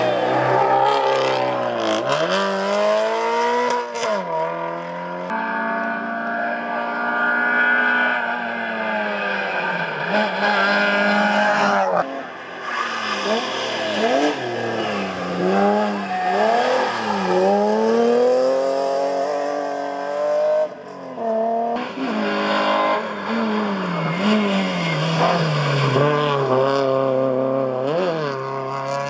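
Race car engines at full throttle on a hill-climb stage, revving up and dropping back again and again through gear changes and corners, several cars one after another.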